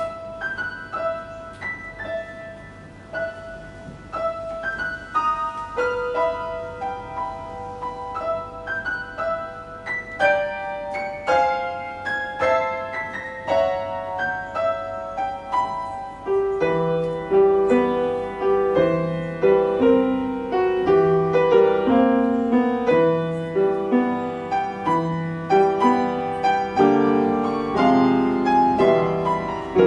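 Grand piano played solo: a lone melody line of single notes at first. About halfway through, lower left-hand notes and chords join in and the playing grows louder.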